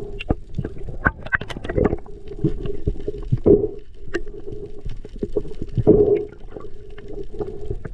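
Underwater sound as picked up by a camera below the surface: a steady low hum with many scattered sharp clicks and crackles, and gurgling water movement.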